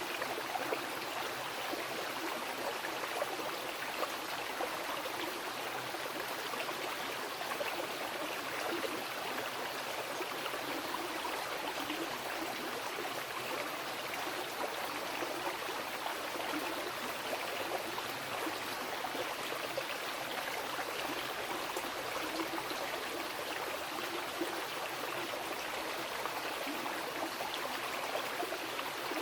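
Mountain river flowing over rocks: a steady, even rush of water with fine splashing and gurgling, unchanging throughout.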